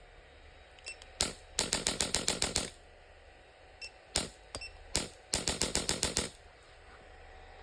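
Electric chiropractic spine adjuster gun firing at intensity 5 of 6, its impulse tip giving runs of sharp rapid clicks, about eight a second. There are two runs of about a second each, with a few single clicks between them.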